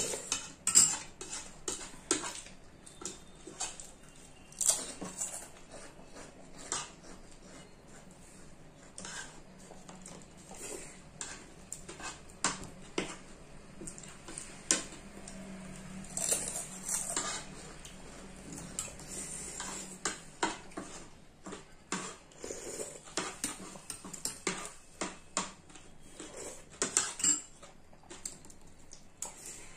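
Metal spoons clinking and scraping on ceramic plates and bowls as two people eat, many sharp clicks scattered throughout, with slurping and chewing mixed in.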